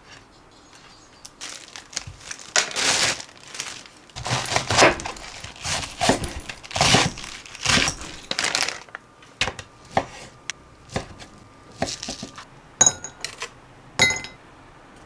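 Crinkly packaging rustling in irregular bursts as it is handled, followed by a few sharp clicks and taps near the end.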